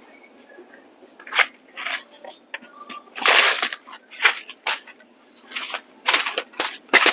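Grocery packaging being handled and shifted: a run of irregular crinkling, crunching bursts, the longest about three seconds in.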